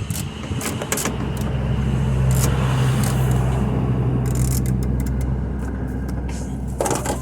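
A car engine running with a steady low hum that swells about a second in and slowly fades toward the end, with scattered clicks and a short clatter near the end.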